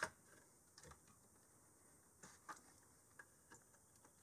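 Near silence with a few faint, irregular clicks and taps from a PCI graphics card being seated in a motherboard slot and a VGA cable connector being plugged into it.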